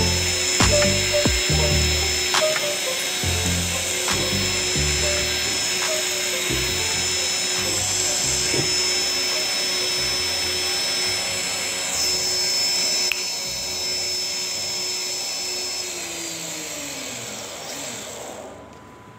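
Two 1000 KV brushless drone motors running off a single ESC with a steady high-pitched whine. The whine winds down and fades near the end as the motors spin down. Background music plays underneath.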